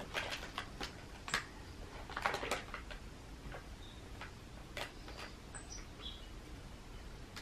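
Brown kraft packing paper crinkling and crackling under a cat's paws as it steps about and settles on it, in quick clusters of crackles for the first few seconds, then only a few scattered ones.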